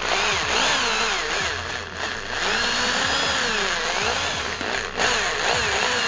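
Small electric drill running, its pitch rising and falling as it bites into the rivet that holds the die-cast toy car's base to its body.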